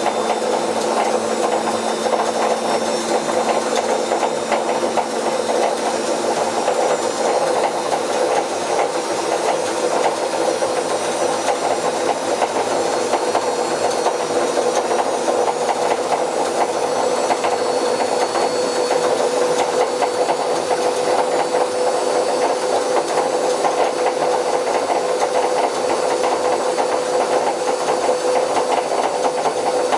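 Bauknecht WA Plus 844 washing machine running, a steady mechanical noise with a steady hum through it: the sound of worn, damaged drum bearings.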